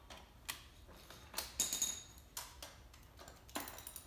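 Irregular light clicks and knocks from hands fitting and adjusting parts on a mini electric ATV during assembly, with a short scraping clatter about one and a half seconds in.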